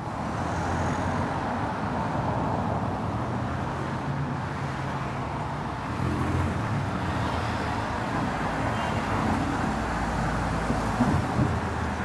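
Street traffic: cars driving past close by, a steady mix of tyre noise and low engine hum, with a few short louder peaks near the end.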